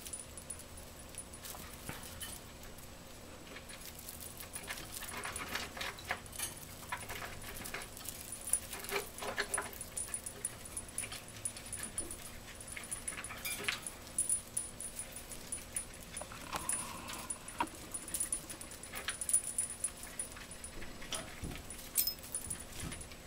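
A flock of budgerigars chirping and chattering in short, scattered calls, with soft rustles and light clicks from the hanging raffia-and-bead toy that they are pulling at and climbing on.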